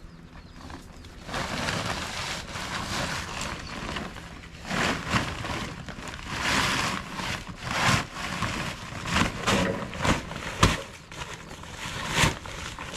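Rustling, crackling handling noise as heavy nylon cast nets are stuffed into a sack, coming in uneven swells, with a few sharp knocks in the later part.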